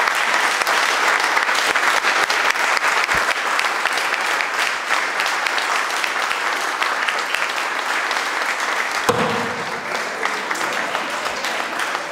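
Audience applauding, dense at first and thinning out about nine seconds in.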